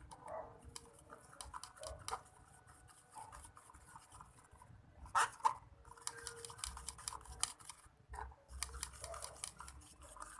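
A utensil stirring and scraping a thick slime mixture in a container, with many small clicks and taps and two louder clacks about five seconds in.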